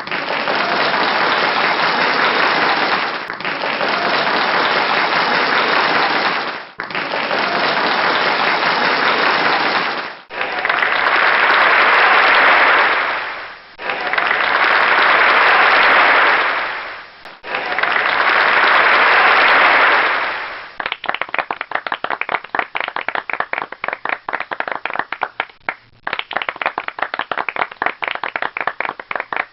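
Crowd applause as a string of short clips, each a few seconds long and fading out before the next begins. About 21 seconds in it changes to thinner clapping, where single claps can be heard apart.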